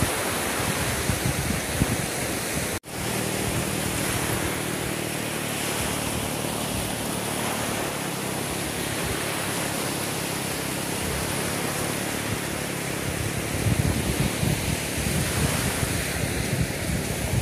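Small waves breaking and washing up on a sandy beach, a steady surf noise, with wind gusting on the microphone in the last few seconds. The sound cuts out for an instant about three seconds in.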